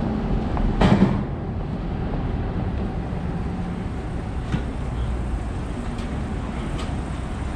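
City street traffic: a steady low rumble of passing vehicles, with a brief louder noise about a second in.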